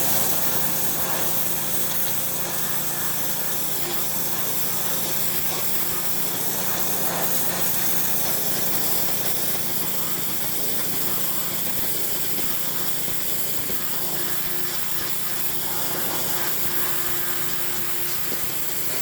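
Pressure washer running steadily, its motor humming under the constant hiss of the high-pressure water jet spraying the deck boards.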